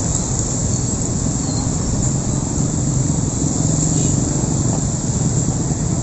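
Motorcycle and scooter engines idling and moving slowly in close traffic, a steady mix of low engine hum and road noise.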